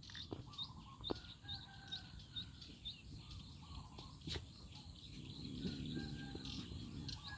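Faint bird chirping: a short high chirp repeated about twice a second, stopping about three seconds in, followed by a single sharp click.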